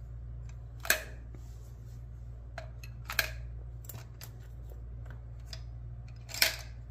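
Sharp clicks and clacks of small hard objects being handled. The three louder ones come about a second in, about three seconds in and near the end, with a few fainter ticks between, all over a steady low hum.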